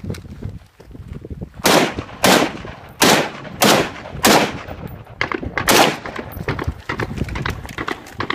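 Rifle fired in a quick string of about seven shots, close to two a second, starting about one and a half seconds in, each shot trailing off in a short ringing echo.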